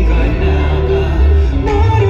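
Live band music with a male lead singer singing into a handheld microphone over electric guitar, drums and bass, with held notes and a strong, steady bass.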